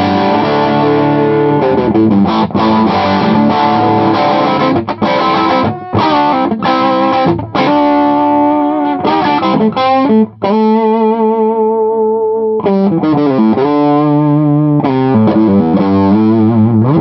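Electric guitar played through a modified Filmosound tube amp, its super lead control up and Filmosound control off, giving a distorted tone. Chords and single-note runs, with a held note bent with vibrato about two thirds of the way through.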